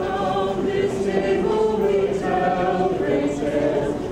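A choir singing a processional hymn, several voices together on sustained notes.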